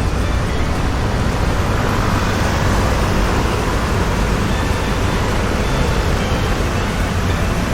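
Heavy road traffic, largely motor scooters, passing in a steady, continuous stream.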